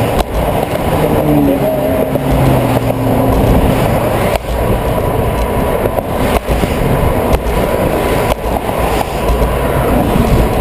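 Wind buffeting a handlebar-mounted camera's microphone while cycling, mixed with car traffic passing on the bridge roadway alongside. A passing vehicle's hum stands out for a couple of seconds about a second in, and there are a few brief knocks from the bike rolling over bumps.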